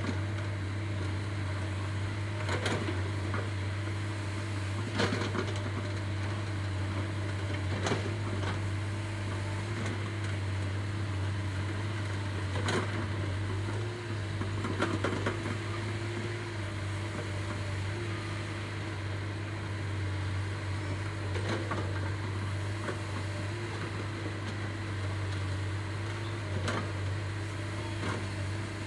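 A digger's diesel engine running at a steady drone, with several short sharp knocks scattered through.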